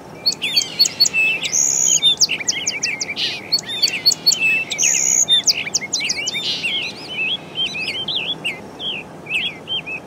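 Birds chirping and singing: a dense, overlapping run of quick high chirps and short whistles that starts abruptly.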